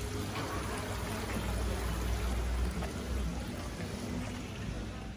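Steady background noise of a busy indoor market hall: an even hiss over a low rumble, with no clear single sound standing out.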